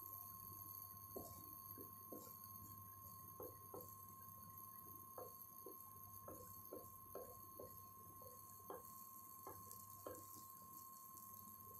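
Bread omelette frying in butter on a dosa tawa, heard as faint, irregular crackling pops, about one or two a second, over a low steady hum.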